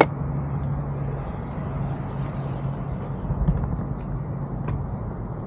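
NANROBOT Lightning 3.0 electric scooter riding slowly on single motor, level one: a steady low rumble from the ride, with a low hum that fades out about three seconds in.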